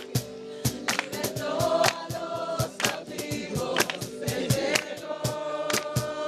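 Music with a group of voices singing together, over many sharp percussive hits.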